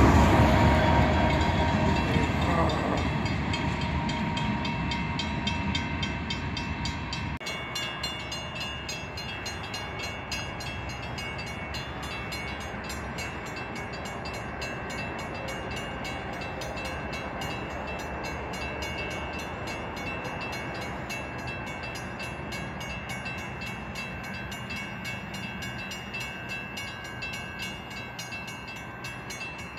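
A diesel freight train rolls past close by, its sound fading steadily over the first seven seconds as it moves away. After a sudden change about seven seconds in, a quieter, steady distant train sound remains, with faint steady tones.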